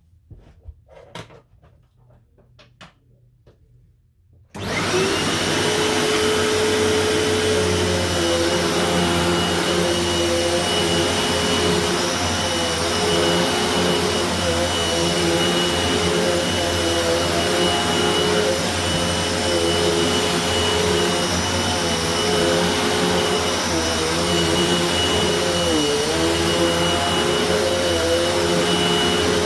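A few faint clicks, then about four and a half seconds in a Hoover WindTunnel Tempo bagged upright vacuum cleaner switches on. Its motor spins up at once and runs steadily with a high whine, the pitch dipping briefly twice near the end.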